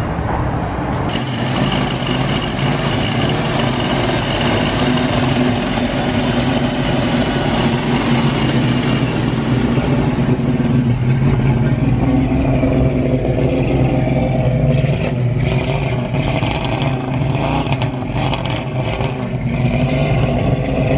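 Classic first-generation Ford Mustang's engine idling steadily through its exhaust with an even, low note.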